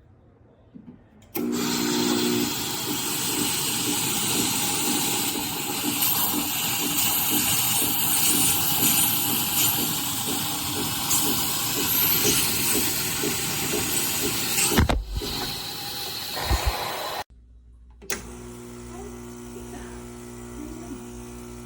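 Espresso machine running: a loud steady hissing rush starts about a second in, runs for some sixteen seconds and cuts off abruptly, followed by a quieter steady hum.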